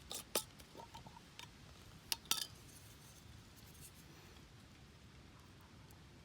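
Cooking utensils clinking against cookware: a quick cluster of sharp clicks at the start and two more a little over two seconds in, then only faint background.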